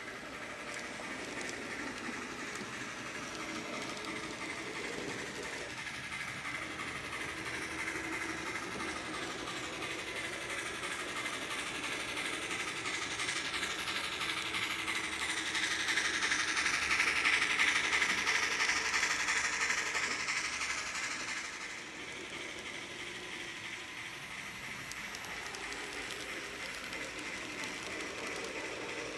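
HO-scale model steam locomotive and freight cars running along the track, a steady rolling and rattling of wheels on rail. It swells for several seconds about two thirds of the way through as the locomotive passes close, then drops back.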